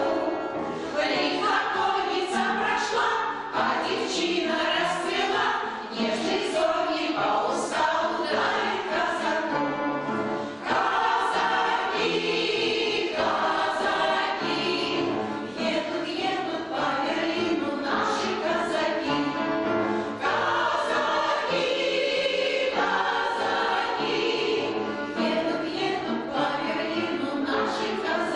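Amateur veterans' choir singing a song, many voices together.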